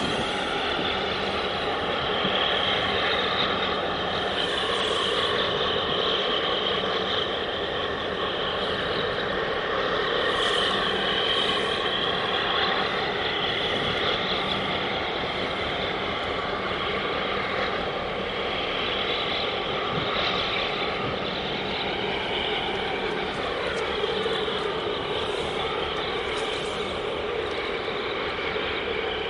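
Heavy diesel engines running steadily, a continuous mechanical din with wavering high tones over it.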